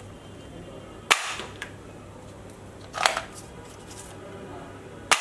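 Plastic toy gun snapping: three sharp, loud cracks about two seconds apart.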